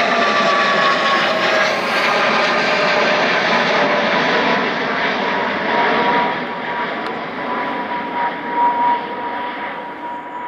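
Large jet airliner taking off, its engines running at takeoff thrust. The engine whine falls in pitch as the aircraft passes, then the sound fades over the last few seconds.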